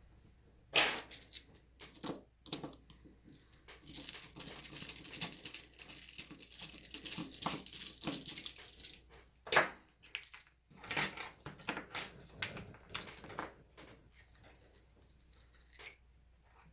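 Metal clicks, clinks and rattles of an American Lock 5200 padlock being taken out of a vise and disassembled by hand, with a denser stretch of scraping and rattling in the middle.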